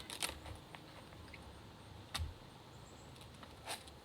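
Hand tools knocking and working at the husk of a green coconut on a rock: a few separate knocks, one with a dull thump about two seconds in. The husk is hard and moist and comes off slowly.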